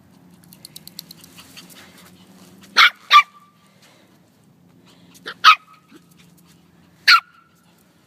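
A puppy barking in short barks: two quick barks about three seconds in, another pair about two seconds later, and a single bark near the end.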